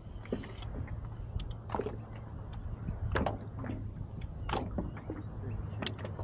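Sharp knocks and clicks from fishing gear and the kayak being handled, a few strong ones spaced roughly a second and a half apart, over a steady low hum.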